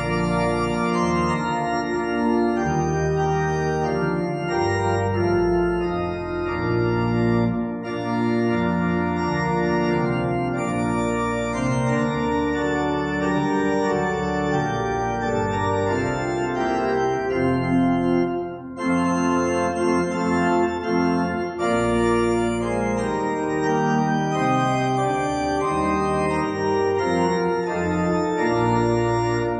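Church organ playing the postlude: full sustained chords over low pedal notes, changing every second or two.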